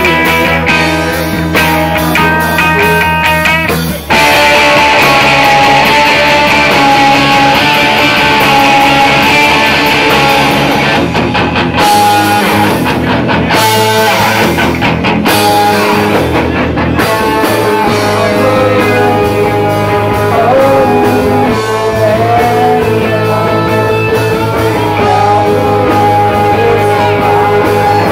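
Live rock band playing loud, with electric guitar to the fore. The sound breaks off briefly about four seconds in and comes back louder.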